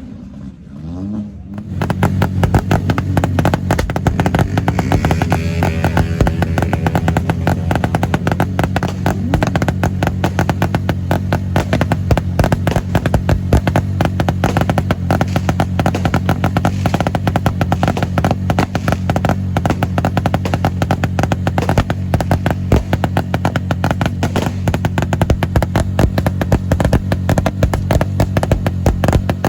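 Loud music with a heavy, steady beat and bass that comes in about two seconds in, after a car engine's rev dies away.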